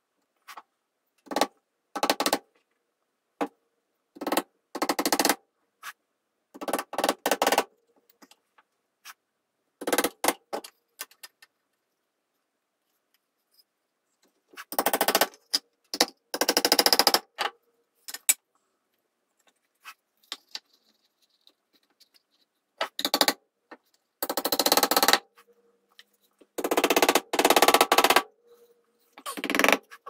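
Hammer tapping small nails into a wooden board: short bursts of quick metal-on-nail strikes, about a dozen of them, with pauses in between.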